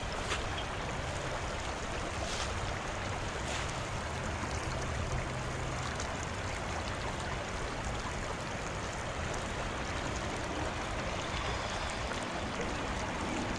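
Steady rushing of a shallow river running over a riffle.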